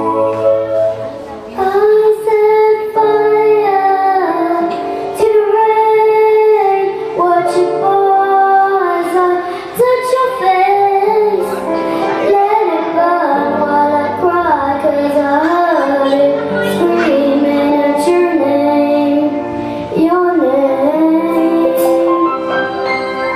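A young female voice sings a slow melody with long held and sliding notes over sustained instrumental accompaniment. Drums come in right at the end.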